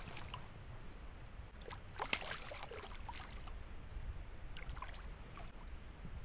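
Water splashing and sloshing as a hooked pike thrashes at the surface beside a small boat. There are a few irregular splashes over a low steady rumble, the loudest about two seconds in.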